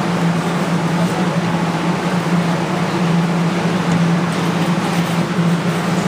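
Steady low hum under an even hiss of background noise, with no change from start to end.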